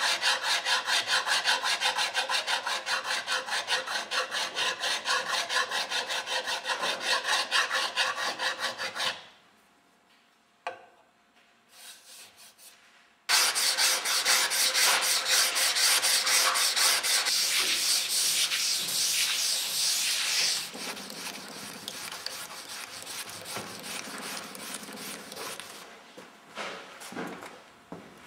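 Fine file and abrasive rubbed by hand back and forth over a brass and tortoiseshell Boulle marquetry surface, smoothing it level, in quick, even rasping strokes, several a second. It stops for about four seconds, then resumes louder and harsher, and softens after about 20 seconds in.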